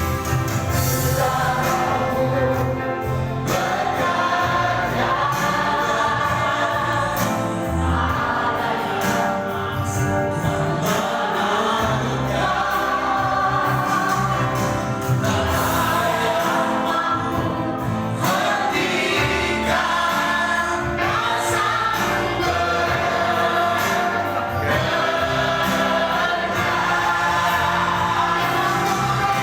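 A group of voices singing a gospel worship song with instrumental accompaniment.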